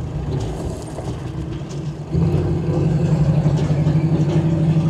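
1971 Chevrolet Nova SS's 350 small-block V8 running as the car creeps forward at low speed. It gets louder about two seconds in and then holds a steady note.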